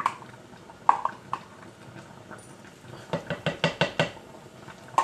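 Cooking utensil knocking and clattering against a pot or pan: a couple of short sharp knocks about a second in, then a quick run of about eight clattering strikes around three to four seconds in.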